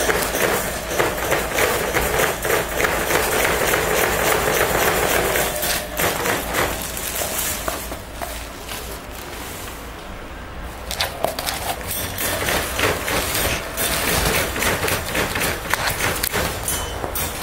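Crackly rustling and crinkling of plastic sheeting and bedding as a raccoon dog rummages and noses through it. The crinkling eases off for a few seconds just past the middle, then picks up again.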